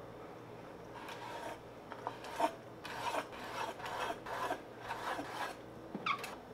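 Chinese cleaver slicing raw clam meat thin on a wooden cutting board: a run of rasping strokes of the blade through the flesh and against the board, about two a second, with a short squeak near the end.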